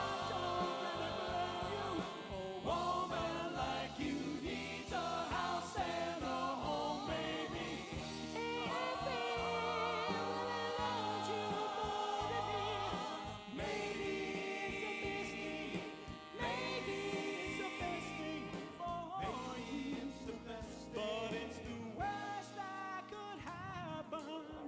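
Vocal group singing oldies-style close harmony with held, wavering notes over a band backing.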